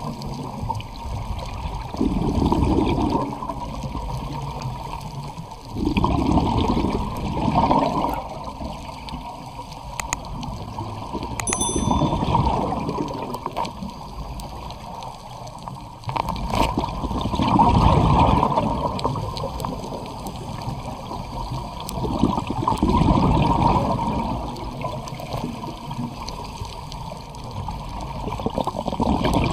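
Underwater bubbling and water rush that swells and fades every four to six seconds, the breathing rhythm of a scuba diver's exhaled regulator bubbles.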